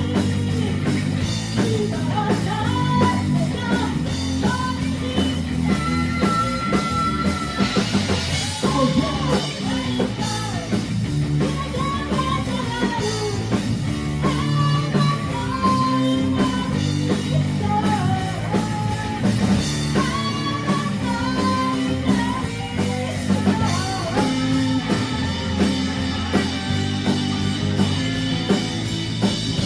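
Rock song with a singing voice, electric guitar and drum kit playing steadily.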